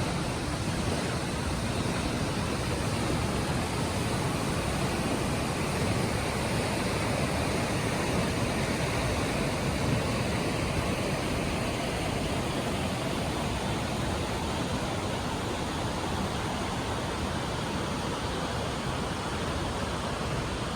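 Waterfall: the steady rush of falling water, an even noise that holds without a break.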